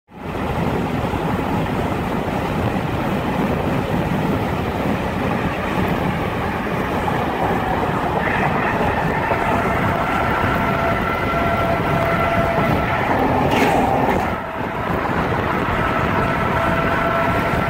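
Steady road and engine noise heard from inside a moving car, a constant rush. A faint steady whine joins it about halfway through, and there is a brief sharp sound near the end.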